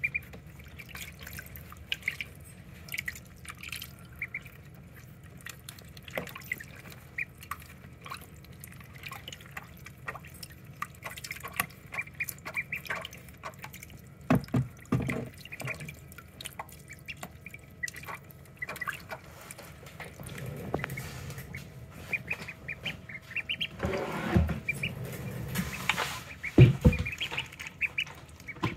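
Ducklings peeping in short, repeated chirps while paddling and splashing in shallow water in a plastic tub. Louder splashes and knocks come a few times in the second half, the loudest near the end.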